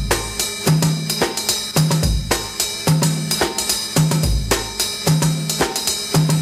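Drum kit playing on its own, a drum intro: bass drum, a low tom and snare under hi-hat and cymbals, in a pattern that repeats about every second.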